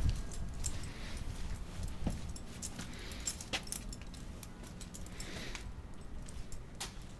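Irregular light metallic clinks and jingles from a dog's leash clip and collar hardware as the dog moves and sniffs on its leash.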